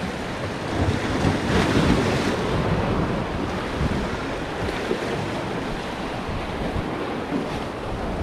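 Small waves washing and splashing against the boulders of a rock jetty, swelling loudest about one to two seconds in, with wind buffeting the microphone.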